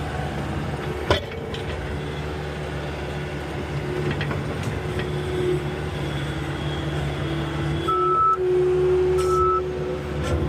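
Skid steer loader engine running steadily, with a whine that rises and falls in pitch; a sharp knock about a second in. Near the end its reversing alarm starts beeping, about once a second.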